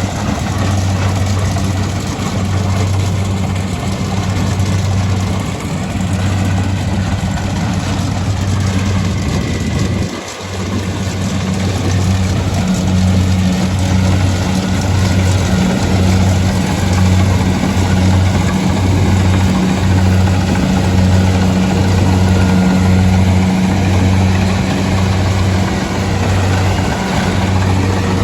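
Rice combine harvester engine running steadily with a low hum. About ten seconds in it dips briefly, then the hum pulses about once a second.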